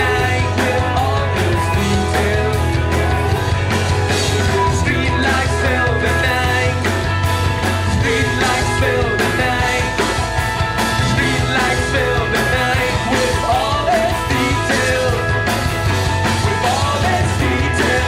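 Live rock band playing a loud song, with a steady drum beat under distorted instruments and some singing.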